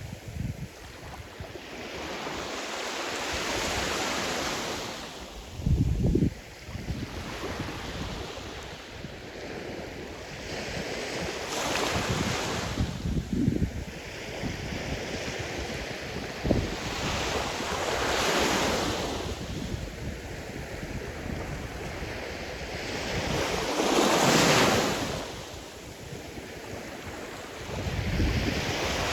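Sea surf washing ashore, each wave swelling and fading every five or six seconds. Wind gusts buffet the microphone with short low rumbles, the strongest about six seconds in.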